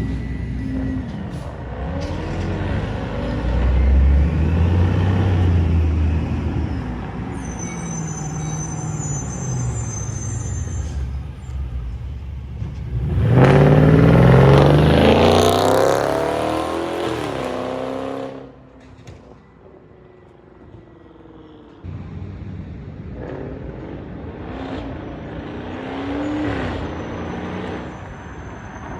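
BMW 650i's twin-turbo N63 V8, with catless downpipes and the muffler deleted, revving and accelerating with its pitch rising and falling. It is loudest a little under halfway through, then drops away abruptly and comes back quieter for the last stretch.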